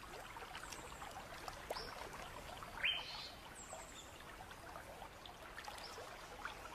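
Faint water trickling and lapping, with small splashes and a few short bird chirps; the loudest chirp rises sharply about three seconds in.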